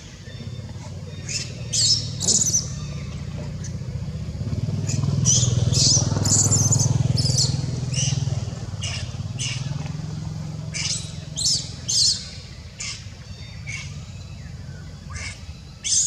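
A motor vehicle's engine hum swells to its loudest about six to seven seconds in and fades again, as if passing. Many short high-pitched calls or chirps sound on and off throughout.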